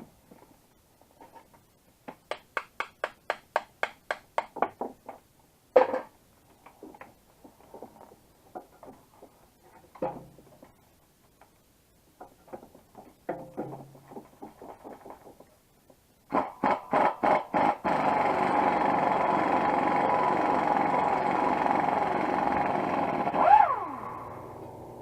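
Tool work on exhaust manifold bolts: quick runs of clicking and a sharp metal clank. Then a power tool pulses a few times and runs steadily for about five seconds before stopping.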